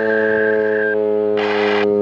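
American Signal T-135 electronic siren sounding a steady, buzzy tone made of several pitches at once. A higher tone above it stops about a second in. Short bursts of hiss cut in and out near the end.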